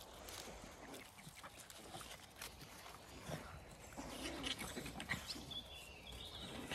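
Puppies and adult dogs play-fighting on gravel: faint, scattered scuffles and small dog noises.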